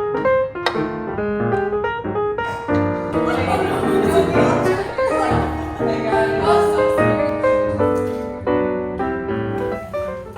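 Background music led by piano, with a regular beat.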